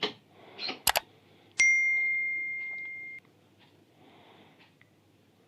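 A single bell-like metallic ding about a second and a half in, holding one clear pitch as it fades, then cutting off abruptly; a couple of sharp clicks come just before it.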